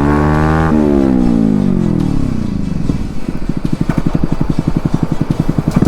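Yamaha R15's single-cylinder four-stroke engine running with no muffler, only a bare pipe, so it is very loud. The engine holds its revs, then winds down as the throttle is released and settles into a lumpy idle of separate exhaust pops, about ten a second. It revs up again right at the end.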